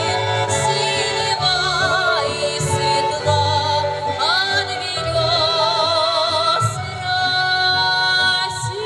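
Music: singing with a wide vibrato over instrumental accompaniment with a steady low bass.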